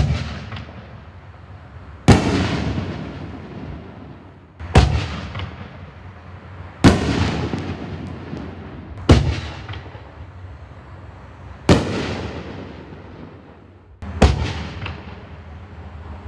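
Black Cat Diablo 60-gram, 4-inch aerial firework shells bursting one after another. There are about seven sharp bangs, one every two to two and a half seconds, and each trails off in a fading crackle and echo.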